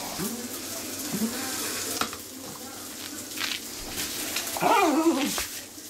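Poodle making a whining vocalisation: a few short, faint whines, then a louder wavering whine near the end. This is the dog's typical noise while waiting for a ball to be thrown.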